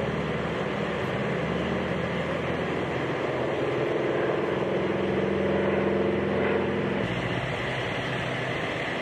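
Single-engine propeller aerobatic plane's piston engine droning overhead during smoke-trailing manoeuvres. It grows louder and a little higher in pitch partway through, and its tone changes abruptly about seven seconds in.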